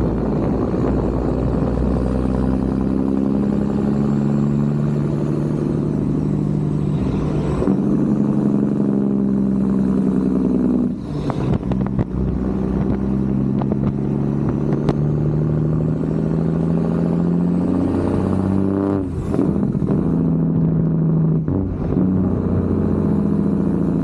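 Freightliner semi truck's diesel engine pulling down the road, its pitch climbing through each gear and stepping back down at several brief dips as the driver shifts.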